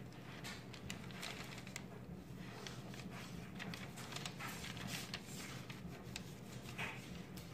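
Gloved hands handling a canvas and the plastic sheeting under it: faint scattered clicks and rustles over a steady low hum.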